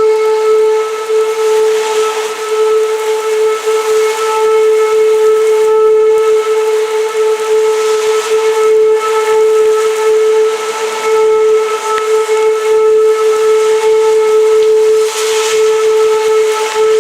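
Derecho wind whistling on one steady note over a loud rushing hiss of wind that swells and eases with the gusts.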